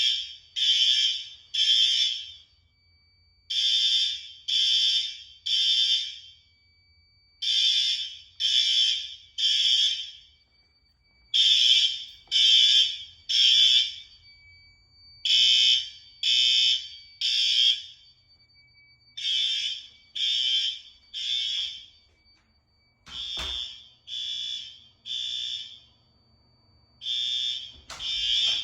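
Fire alarm horns sounding the evacuation signal: three short blasts, a pause, then three more, repeating steadily in the temporal (code-3) pattern. A faint steady tone carries on between the blasts, and two brief knocks come about two-thirds of the way through and near the end.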